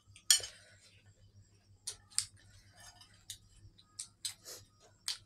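Close-up eating sounds: chewing with a string of short, crisp clicks and crunches at irregular intervals.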